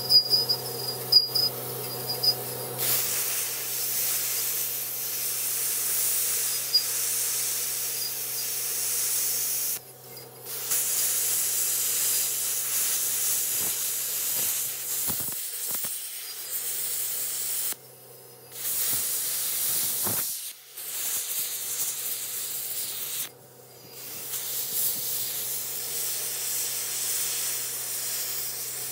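Plasma cutter gouging out the weld of a worn steel pintle hitch eye: the arc gives a loud, steady hiss that starts about three seconds in, after a few sharp clicks. It stops briefly four times as the trigger is released and pulled again.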